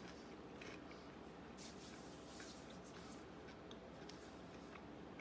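Near silence: faint room tone with a few soft rustles and clicks from a person chewing a mouthful of toasted sandwich and moving her arms.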